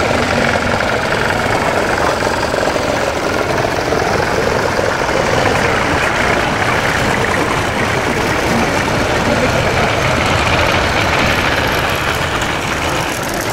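Several vintage tractor engines running together as the tractors drive slowly past, a steady, unbroken engine sound.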